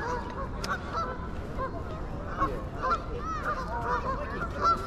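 A flock of geese honking, many short calls overlapping one another.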